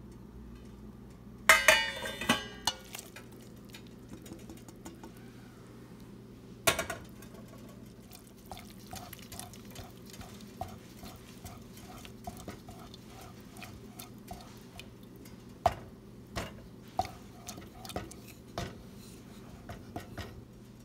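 Wooden spoon stirring and mashing spinach into thick cooked toor dal in a metal cooker pot: a run of soft, even taps about two a second, then several sharper knocks of the spoon against the pot. Near the start, a loud metallic clatter with ringing from the steel pans.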